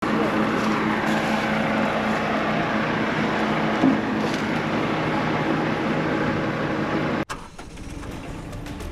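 A vehicle engine running steadily with a low hum and dense road-and-engine noise, cutting off suddenly about seven seconds in; a quieter stretch follows.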